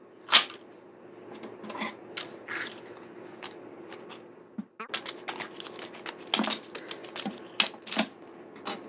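Scissors cutting open the small plastic bag holding a cabinet knob and its screw, with plastic crinkling and a run of irregular sharp clicks as the parts are handled.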